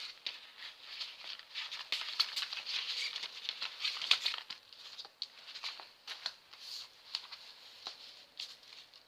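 Packaging being handled: irregular rustling and crinkling, with many small clicks and taps, loudest about two to four seconds in.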